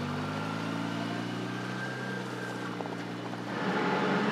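Polaris Ranger 6x6 side-by-side's engine running steadily, getting louder about three and a half seconds in.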